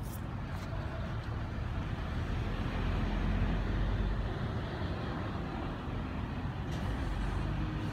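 Steady low rumble of road traffic, swelling a little midway, with a few faint crinkles of thin vinyl wrap film sheets being flexed by hand near the start and near the end.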